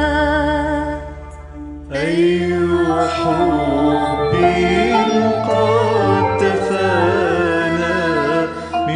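Slow hymn music with sustained, wavering melodic lines. It drops quieter about a second in, then swells back fuller at about two seconds.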